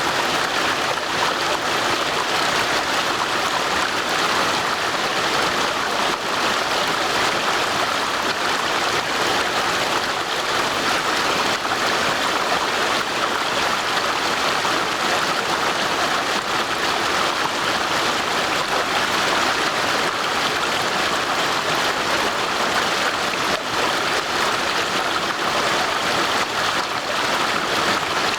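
Stream water rushing and splashing over stones in a steady, even flow.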